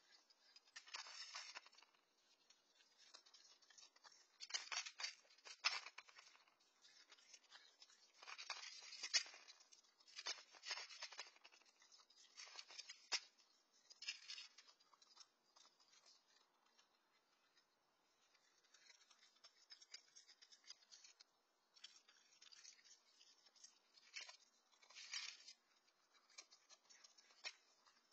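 Raccoon eating dry cat kibble from a metal pan close up: irregular bursts of crisp crunching and clicking a second or a few seconds apart, with quiet gaps between.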